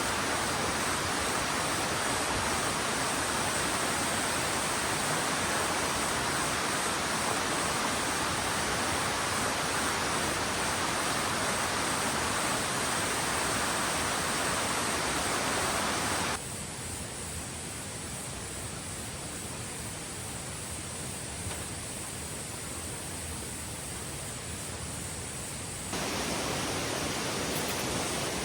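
Mountain valley stream rushing, a steady even rush of water that drops to a quieter level about two-thirds of the way through and then returns near the end. A faint steady high chirring of insects runs over it.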